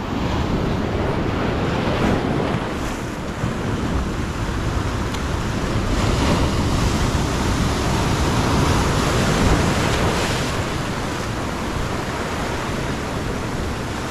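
Ocean surf breaking and washing over a rocky reef shoreline, a steady rushing that swells and eases with the waves, with wind buffeting the microphone.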